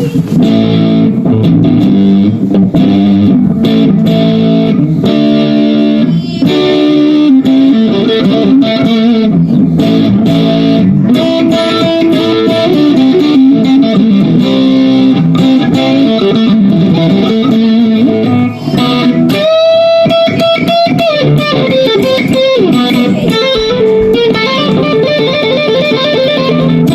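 Electric guitar music playing loudly through a Positive Grid Spark 2 guitar amplifier: runs of picked notes, with a long held, bent lead note about 19 seconds in.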